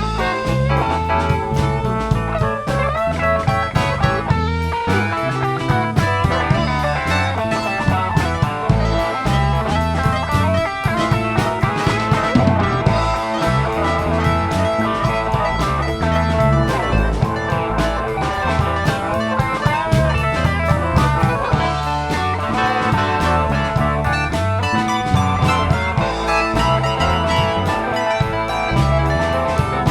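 A blues-rock band playing an instrumental passage: guitar over drum kit, with a low line stepping from note to note underneath.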